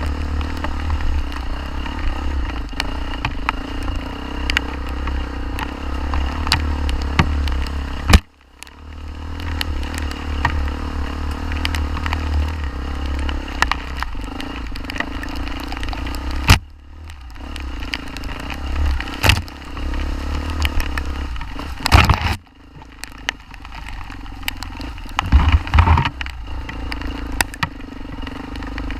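Off-road motorcycle running while being ridden, with a heavy low rumble, constant rattling and clicking, and a few sharp loud knocks about 8, 22 and 25 seconds in.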